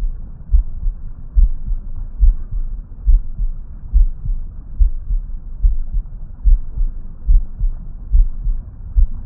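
Heartbeat picked up through a digital stethoscope: deep, even thumps about once every 0.85 s (around 70 beats a minute, the rate of the mother's pulse rather than the faster fetal heart), over a steady rushing hiss.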